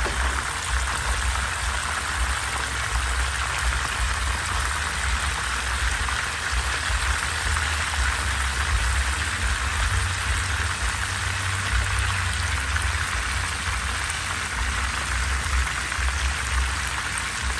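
Red snapper pieces frying in hot oil in a nonstick pan, a steady, even sizzle of bubbling oil, with an uneven low rumble underneath.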